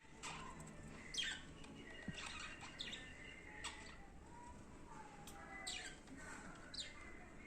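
Budgerigar chirping and chattering, with several sharp calls that drop quickly in pitch and a faint held whistle between them.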